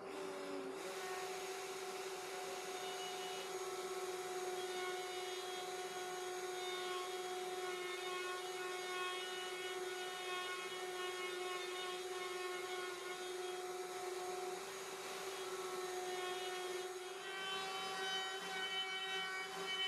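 Table-mounted wood router running with a steady whine while a plywood disc is turned against the bit, trimming its edge round; a shop vacuum draws the dust away through the fence hose. The sound grows a little louder and busier near the end.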